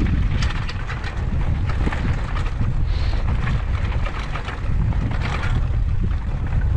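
Wind buffeting the microphone in a steady low rumble as a Schwinn Boundary mountain bike rolls down a dirt singletrack, with short clicks and rattles from the bike over the bumpy trail.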